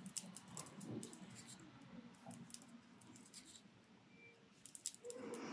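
Faint, scattered small clicks and rustles of a metal crochet hook working cotton yarn, stitch by stitch, in single crochet.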